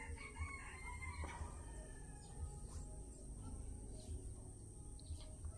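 A distant rooster crowing once in the first second and a half, faint under quiet room tone, with a few faint bird calls after it.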